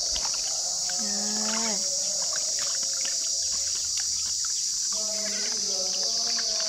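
Steady high-pitched chorus of insects. Over it are light splashes of water in a plastic basin as hands wash, and two short pitched vocal sounds that fall in pitch at the end, about a second in and about five seconds in.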